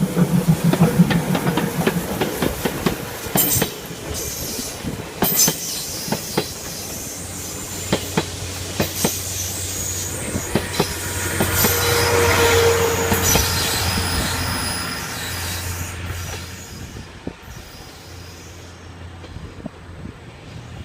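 A steam-hauled train rolling over a level crossing: a steady rumble of wheels on rail with irregular sharp clacks as they cross the rail joints. It swells about midway, then fades as the train moves away.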